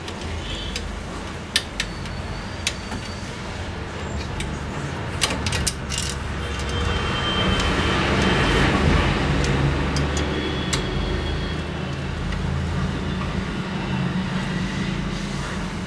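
Road traffic rumbling steadily, with a vehicle swelling past about halfway through. A few sharp clicks in the first few seconds, from small parts and tools being handled.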